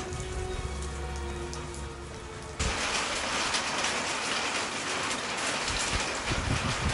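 Steady rainfall, becoming louder and denser from about two and a half seconds in. Before that, soft music plays over lighter rain.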